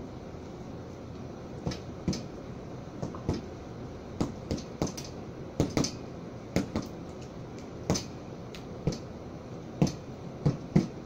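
A string of sharp knocks or smacks at irregular intervals, about fifteen of them, over a steady low background hum.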